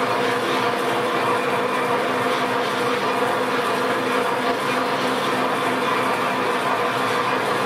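Metal lathe running steadily, its chuck turning a brass rod while a knurling tool rolls a knurl into it under a slow feed: a constant machine hum with several steady tones.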